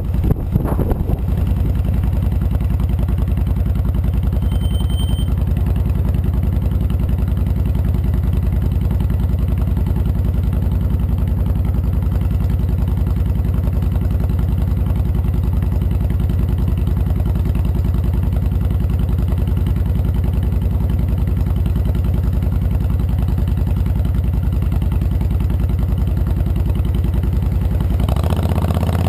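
Honda VTX 1300C's V-twin engine idling steadily with an even low pulse while the bike is stopped, after a brief rush of wind in the first second as it rolls to a halt.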